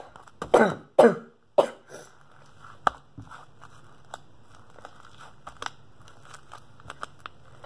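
A girl coughing three times in quick succession, a cough left over from a cold. Then faint sticky clicks and squelches as slime is pressed and pulled apart by hand.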